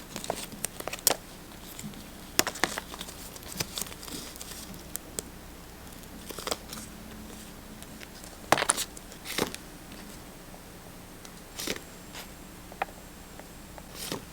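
Paper rustling and crinkling with scattered light taps and clicks as decorating papers and stickers are handled on a journal page. The loudest rustles come about two and a half seconds in and again around eight to nine and a half seconds in.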